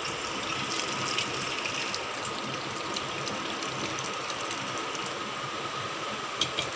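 Curdled milk, soft chhena curds and whey, poured into a cotton cloth lined strainer: a steady gush of liquid splashing and draining through the cloth.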